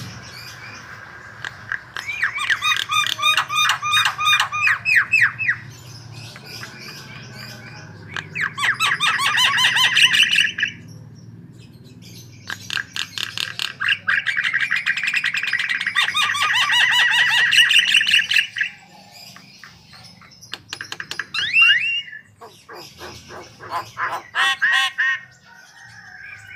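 Javan myna (jalak kebo) in vigorous song: long runs of rapid, harsh chattering and squawking notes, three bouts of several seconds each. Near the end come shorter calls, with a couple of quick rising notes.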